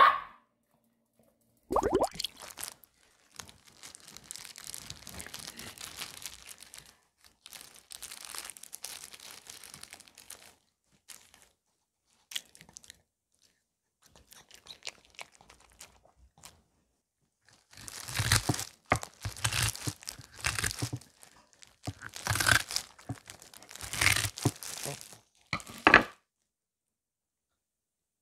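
One short bark from a Maltese right at the start, then hands, one in a plastic glove, tearing soft kimchi cabbage into strips: crinkling plastic and wet tearing and crunching in irregular bursts with short pauses, loudest in a run of bursts in the second half.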